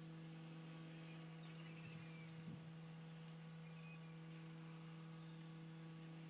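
Near silence with a steady low hum, and faint short high chirps about two seconds and four seconds in.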